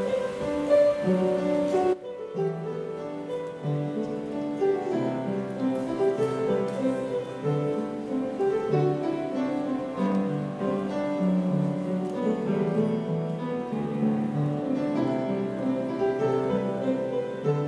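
Slow instrumental music on piano with bowed strings, held notes moving from chord to chord.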